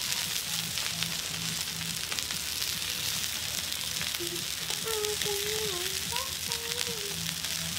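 Sausages and burger patties sizzling steadily on a hot barbecue hotplate, with light clicks and scrapes of metal tongs turning them.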